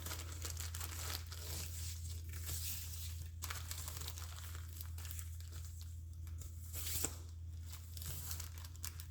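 Paper and ribbon rustling and crinkling as a journal kit is handled and tied, with a steady low hum underneath.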